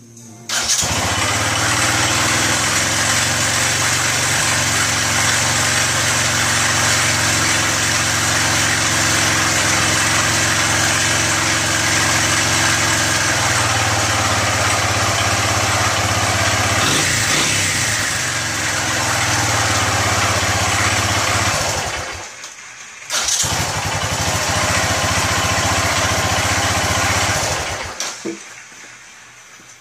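Honda ATC200E Big Red's air-cooled single-cylinder four-stroke engine, started on its electric starter and running steadily. About three-quarters of the way through it is shut off and restarts a second later, then it stops again near the end.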